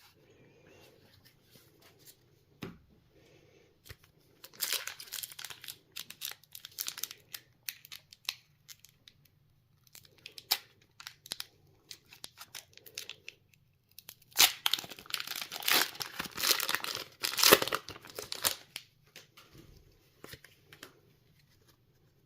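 Pokémon booster pack's foil wrapper being torn open and crinkled, in two stretches of crackling rustle, the louder and longer one near the end, with quieter handling between.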